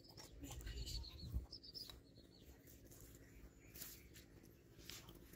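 Faint bird chirps: a few short high notes in the first two seconds, over a low wind rumble on the microphone. A couple of soft rustles come near the end.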